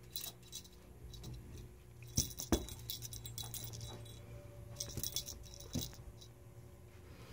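Beads on a cat wand toy clicking and jangling in several short bursts as the toy is jiggled for a kitten, the loudest cluster about two seconds in.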